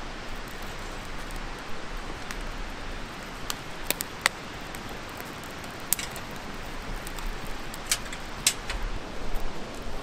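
Freshly lit campfire crackling: a scattering of sharp pops over a steady hiss.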